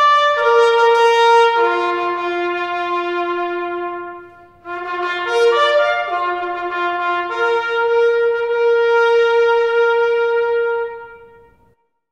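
Solo trumpet playing a slow bugle-style call of long held notes. The notes step downward, there is a short break about four and a half seconds in, then a few more notes end on a long held note that fades out near the end.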